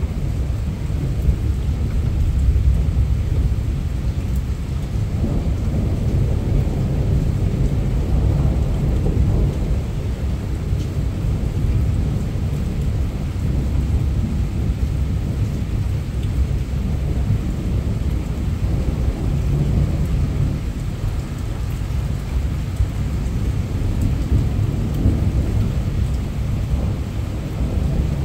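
Heavy rain falling steadily under a continuous low rumble of rolling thunder, which swells and fades a little without a sharp crack.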